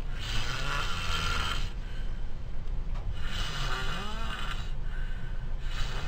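A person snoring heavily: long rattling breaths about every three seconds, two full snores with a third starting near the end.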